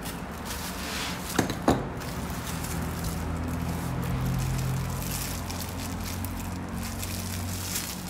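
Clear plastic wrapping crinkling as a wrench is handled and unwrapped, with two sharp clicks about a second and a half in.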